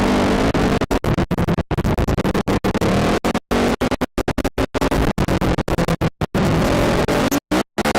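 ATV engine running and revving, the audio cutting out to silence dozens of times in quick, irregular dropouts that chop the sound into stuttering fragments.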